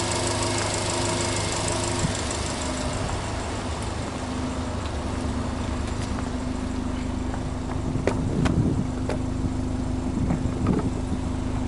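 Subaru Impreza WRX STI's turbocharged flat-four (boxer) engine idling steadily. A fine fast ticking from the engine bay fades after a few seconds, leaving the even idle from the exhaust, with a few clicks and bumps near the end.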